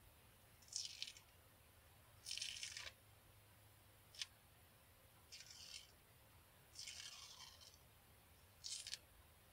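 Peel-off face mask being pulled away from the skin: about six short crackly tearing sounds with pauses between them, one of them a brief sharp click a little after four seconds in.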